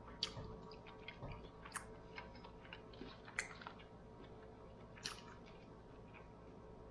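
Faint eating sounds: chewing with small mouth clicks, and four louder sharp clicks and crackles about a second and a half apart as shell-on shrimp are pulled apart by hand.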